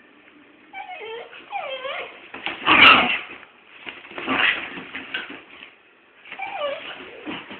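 Dogs fighting: high whines and yelps that slide up and down in pitch, with two louder, rougher outbursts about three and four and a half seconds in.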